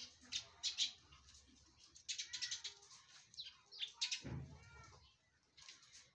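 Chukar partridge calling: short runs of high, sharp chattering notes, some in rapid series, with a lower drawn-out call just after four seconds in.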